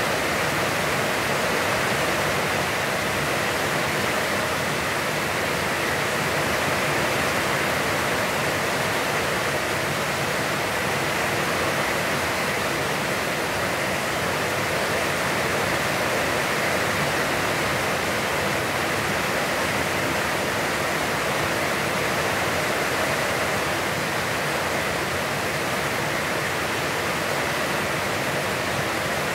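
Heavy, constant rain falling, a steady even hiss with no breaks or thunder.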